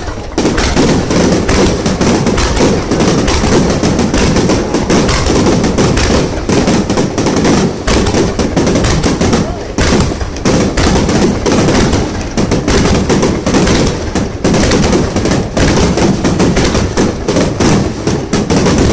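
Fireworks going off in a dense, continuous barrage of overlapping bangs and crackling, with no pause.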